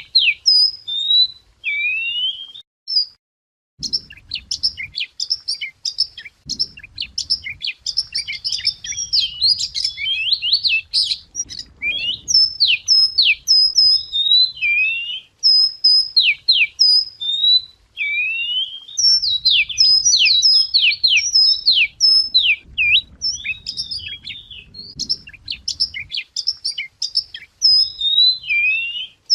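Chìa vôi songbird singing a loud, rapid and varied song of whistled notes, sweeps and chirps, with a short pause about three seconds in.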